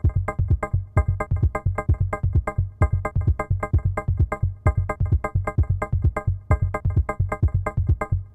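Background music of short, quickly and evenly repeated electronic keyboard notes over a low pulse.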